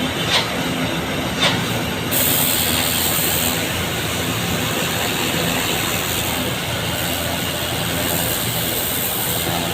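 Steady hiss of water spraying from a flushing hose, with a motor's steady hum underneath. A few short knocks come in the first second and a half, and the spray hiss grows stronger about two seconds in.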